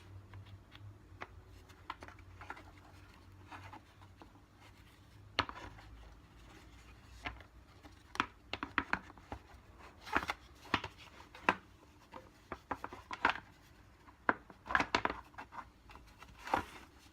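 Scattered clicks, taps and knocks of Henry vacuum cleaner parts being handled and pushed together during reassembly, a part not yet seating. Sparse at first, coming more often and louder in the second half.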